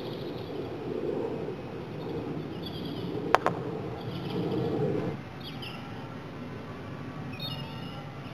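A croquet mallet strikes the ball once, a sharp click about three seconds in, with a second lighter click straight after. Birds chirp faintly now and then.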